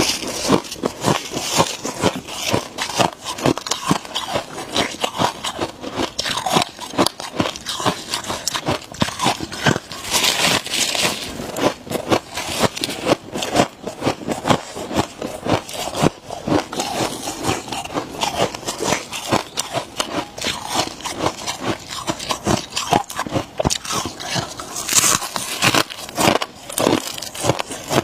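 Close-miked crunching and chewing of freezer frost: a dense, unbroken run of crisp crackles and crunches, with brighter, hissier stretches about a third of the way in and near the end.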